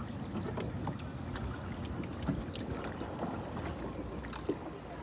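Small boat being paddled by hand: paddle strokes through the water with scattered small knocks and clicks, over a steady low rumble of water and air.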